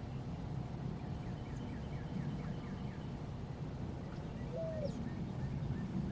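Wild birds calling: a quick run of short downward-sliding chirps, then one lower hooked note and a few more chirps, over a steady low background rumble.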